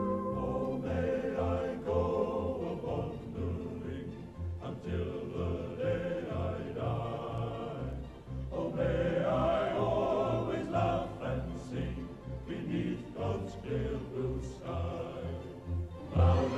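Background music: voices singing over an accompaniment with a steady, evenly repeating bass beat.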